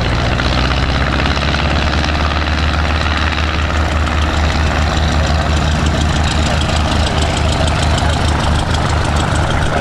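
Cessna 140's piston engine and propeller running steadily with a low, pulsing thrum as the light plane rolls along the runway.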